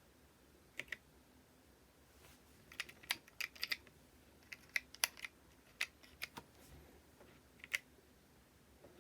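Keystrokes on a Keychron K4 mechanical keyboard: irregular sharp key clicks, a pair about a second in, a quick run of typing from about three to six and a half seconds, and a single keystroke near the end.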